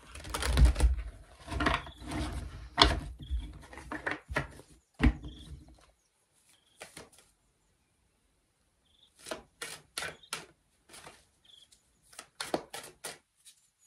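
A deck of tarot cards being shuffled by hand: quick papery slaps and clicks of the cards, with a few low knocks at the start, in two bouts separated by about three seconds of quiet.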